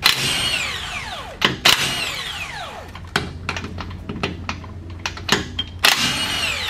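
Power impact wrench spinning off a truck wheel's lug nuts in several short bursts. Each burst ends in a falling whine as the motor winds down after the trigger is released.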